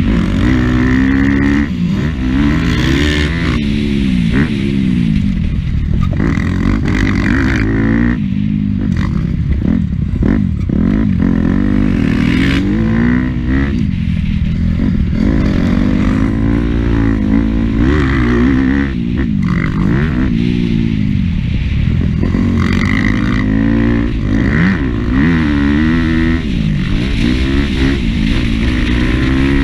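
Motocross dirt bike engine heard from on board, revving up and dropping back again and again as the rider accelerates, shifts and rolls off for the corners.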